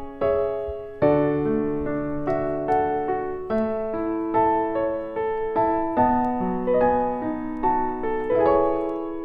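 Background piano music: a gentle, unhurried melody of struck notes and chords, each note ringing and fading.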